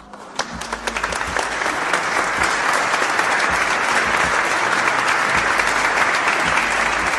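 Crowd applause, swelling in over the first second or two and then holding steady. A canned applause effect cheering a finished plank.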